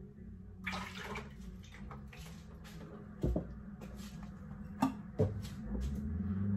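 Heavy cream poured from a carton into a measuring cup and a plastic blender jar, a splashing liquid pour. Then a few sharp knocks as the cup and carton are set down.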